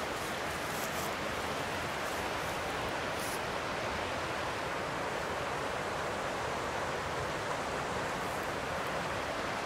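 A steady, even rushing noise outdoors at night, with no beat or change in level.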